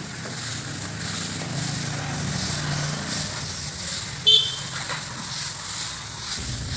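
Wooden float rubbed over fresh cement plaster on a brick column: a continuous scraping over a low steady hum. About four seconds in, a short high-pitched sound is the loudest moment.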